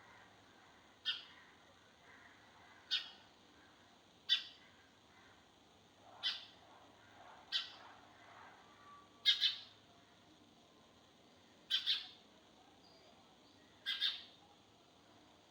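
A sparrow chirping: eight short, single chirps, one every one and a half to two seconds, the last few given as quick doubles.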